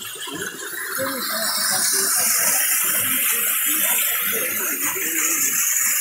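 Small waterfall splashing into a pool: a steady rush of falling water that swells about a second in and then holds.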